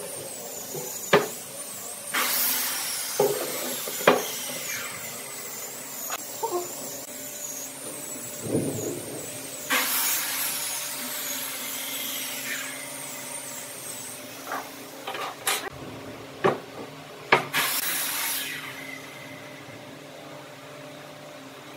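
Workbench handling sounds: several sharp knocks of timber set down on a wooden bench, and a few longer scrapes of a steel rule and pencil across the wood, over a steady machine hum.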